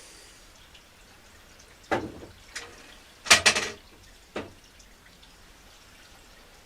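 A handful of short knocks and clatters, scattered over a few seconds, with the loudest cluster about halfway through.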